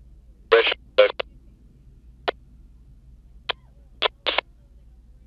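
A scanner radio on the 146.520 MHz FM calling frequency breaking squelch in a string of short bursts, the first two carrying clipped scraps of voice. A faint low hum lies between the bursts.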